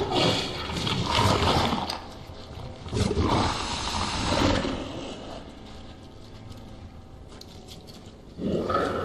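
Horror-film sound effects of a cave creature attacking: rasping, growling creature noises in bursts. They quieten in the middle and come back loud near the end.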